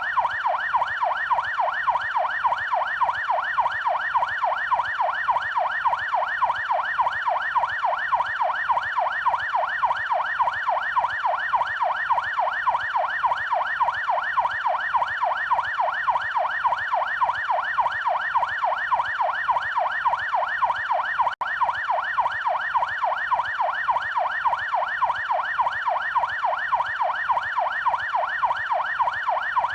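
Police siren in yelp mode: a fast, even rising-and-falling wail at about three sweeps a second, with one split-second break about two-thirds of the way through.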